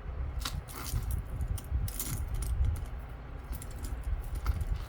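Metal jewelry chains clinking and jingling in small, irregular clicks as fingers work at untangling a tightly knotted necklace chain, with low rubbing and handling noise underneath.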